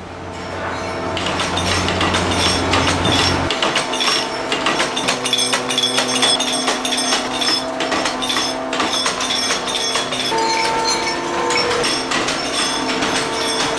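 A dense clatter of clinks and knocks, fading in over the first few seconds, with several steady held tones underneath.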